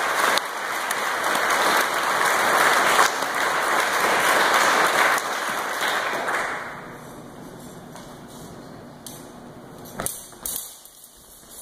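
Dinner audience applauding, which fades out after about six seconds and leaves the hall quiet. A couple of sharp clicks come near the end.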